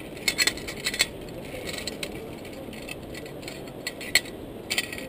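Metal clicks and clinks from a steel zipline trolley and its carabiner being handled on the cable, a few sharp ones in the first second and another cluster near the end.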